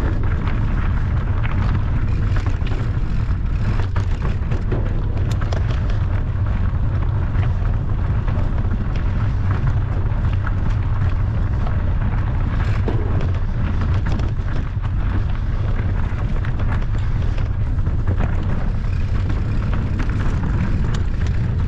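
Steady loud wind rumble on the microphone of a camera riding along on a mountain bike, with frequent small clicks and rattles over it.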